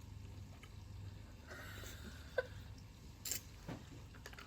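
Quiet room with a steady low hum, broken by a few faint clicks and taps, the sharpest a little past the middle.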